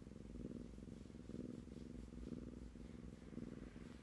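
Tabby kitten purring steadily as it is stroked, a soft fast rumble that swells and eases about once a second with its breathing.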